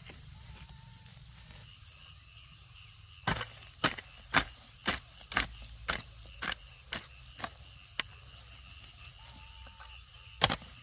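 A run of sharp knocks at about two a second begins about three seconds in and grows fainter, then two more come near the end: a hand tool striking wood, as in hammering or chopping. Insects shrill steadily underneath.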